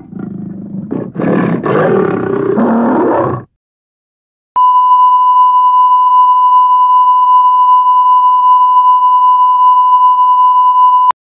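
A growling gorilla roar sound effect lasting about three and a half seconds. After a second of silence comes a steady, loud, single-pitch broadcast test tone, the bars-and-tone signal that plays over colour bars, which cuts off suddenly near the end.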